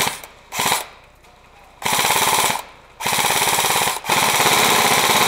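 Airsoft gun firing on full auto in rapid bursts of BB shots: two short bursts, then three longer strings, the last running on about two seconds.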